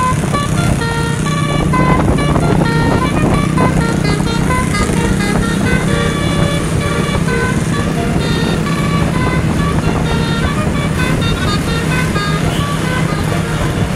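A tour bus's 12-note telolet horn playing a quick melody of short stepped notes, over the bus's steady engine hum.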